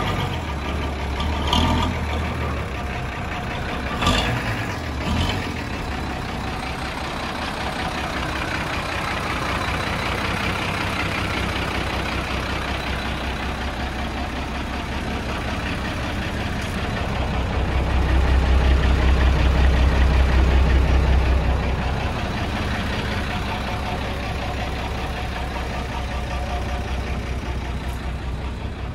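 Six-cylinder diesel engine of a 1971 Chevrolet C60 truck running steadily. It grows louder and deeper for a few seconds about two-thirds of the way through. A few sharp knocks come in the first five seconds.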